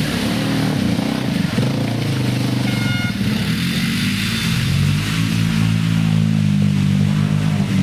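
Quad ATV engines revving hard as they churn through deep mud, the engine note rising and falling and changing pitch about four to five seconds in. A brief high tone sounds about three seconds in.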